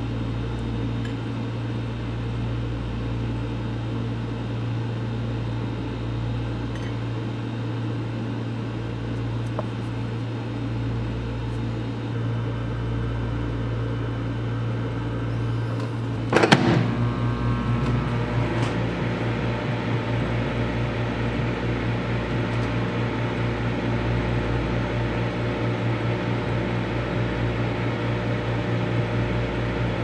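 Microwave oven running with a steady low hum. About halfway through there is a single sharp clack, after which the hum carries on with a slightly pulsing, brighter tone.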